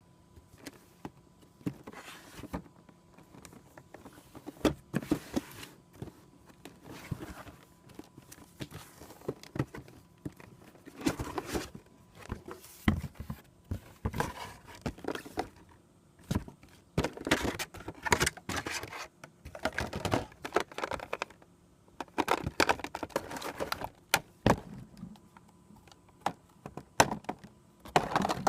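Packaging being handled and opened: irregular scrapes, crinkling of plastic wrap and light thunks and clicks from a box and its contents being moved about.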